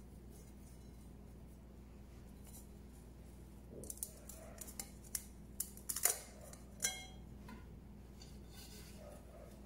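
A hand working huauzontle buds inside a perforated stainless steel strainer: a run of sharp clicks and scrapes starting about four seconds in, the last one knocking the metal so it rings briefly.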